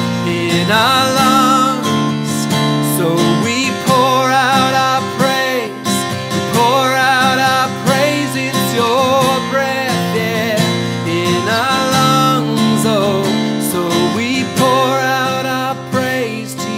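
A man singing a worship song with vibrato, accompanying himself on a strummed acoustic guitar.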